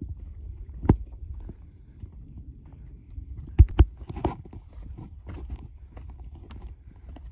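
Hiker's footsteps on sandstone slickrock and rock-cut steps: irregular scuffs and taps, with sharp knocks about a second in and twice between three and four seconds in, over a steady low rumble.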